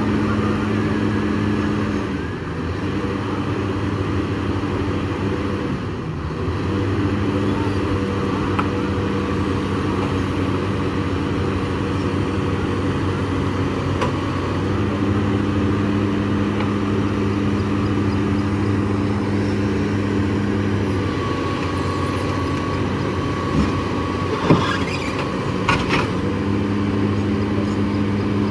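SANY crawler excavator's diesel engine running under load as the machine works its boom and tracks, the engine note stepping up and down several times. A few sharp knocks sound near the end.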